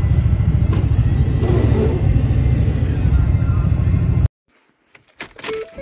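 Ford Triton engine and road noise inside the truck's cab while driving, a steady low rumble; the driver says cylinders 6 and 7 have quit and suspects the piston rings. The rumble cuts off abruptly about four seconds in, followed by a short silence and then a few clicks and a steady tone near the end.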